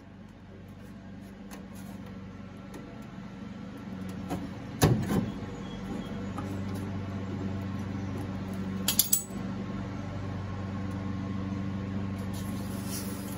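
A sheet-metal patch panel being handled and held against the inner wheel well, giving a sharp metal clank about five seconds in and a couple of quick clicks around nine seconds. Under it runs a steady low hum that grows louder during the first few seconds.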